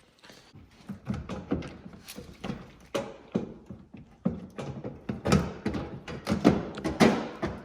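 A series of irregular knocks and thumps, a few a second, getting louder towards the end.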